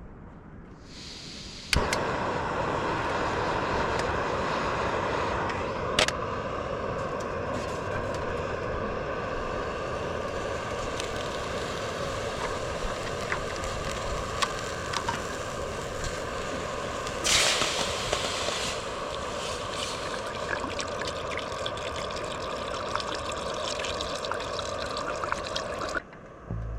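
Water running steadily, starting suddenly about two seconds in and stopping suddenly near the end, with small clicks and knocks over it.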